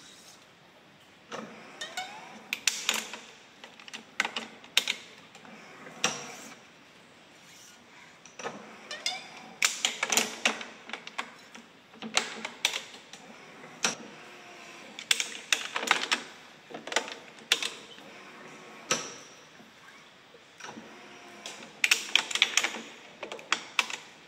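A badminton racket being strung on a stringing machine: GOSEN RYZONIC 65 string rubbing and zipping as it is woven and pulled through the cross strings, with sharp clicks from the machine's clamps and tensioner head coming in irregular clusters.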